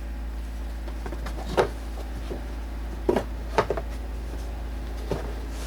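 Plastic heater box parts being handled, giving a few short clicks and knocks spaced over several seconds, over a steady low hum.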